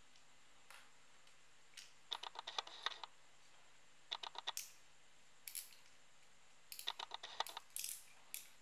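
Quick runs of small plastic clicks and rattles in several short bursts, from the plastic case and gears of a quartz wall-clock movement being handled and pried apart by fingers.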